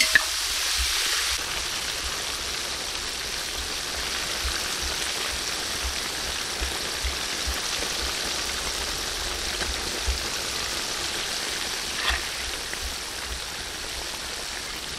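Batter-coated chicken pieces deep-frying in a large pot of hot oil: a steady bubbling sizzle.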